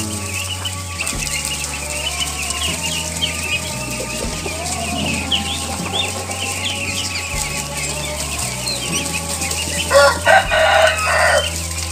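A large flock of young Mojosari ducks peeping and chattering without a break, a dense run of short high calls. Near the end a louder call lasting about a second and a half stands out, rooster-like.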